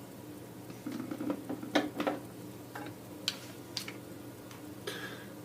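Small sharp clicks and taps of hand tools and parts being handled at a soldering workbench, bunched about a second in and then a few scattered ones, over a steady low hum.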